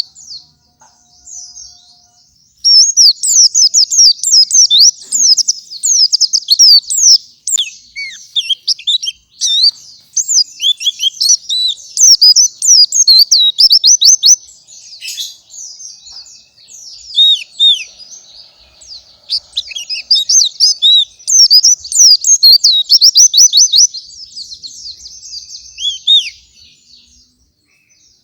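Pleci (white-eye) singing its fast, energetic gacoran song: long runs of rapid, high-pitched chattering twitters, broken by short pauses between phrases.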